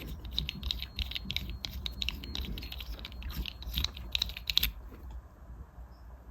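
Quick, light clicks and ticks of a small tool and the reel being handled while someone tries to loosen the screw holding a spinning reel's handle knob. The screw is stuck fast. The clicking thins out about three-quarters of the way through.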